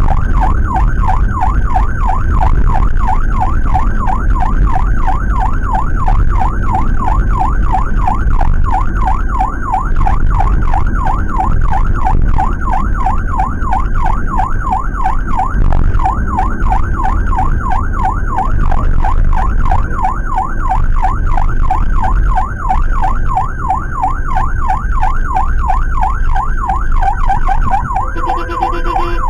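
Electronic emergency siren in a fast yelp, its pitch rising and falling rapidly without a break, heard from inside the Suzuki APV ambulance's cabin over the low rumble of the engine and road. Near the end the siren pattern changes briefly to stepped tones.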